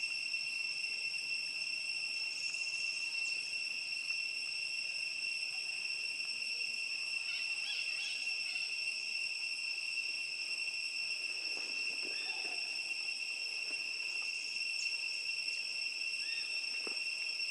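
Steady, unbroken, high-pitched drone of insects, a shrill chorus holding two even pitches.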